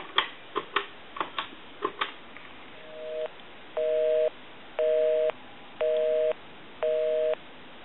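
Crosley 302 reproduction desk telephone dialed to a busy line: a few quick clicks as the last digits are keyed, then the busy signal, a low two-tone buzz pulsing about once a second, half a second on and half off. The dialed number is engaged.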